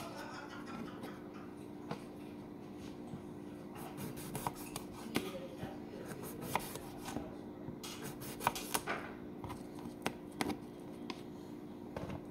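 Kitchen knife slicing a cucumber on a wooden cutting board: scattered soft cuts and taps of the blade against the board, over a faint steady hum.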